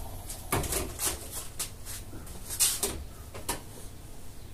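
Several short knocks and clicks of kitchen handling, spaced irregularly, with two close together a little past the middle.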